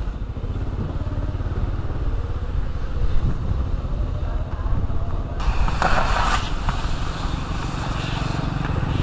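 Motorcycle engine running at low speed with a steady low throb. About two-thirds of the way through, a brief burst of noisy rushing sound joins it.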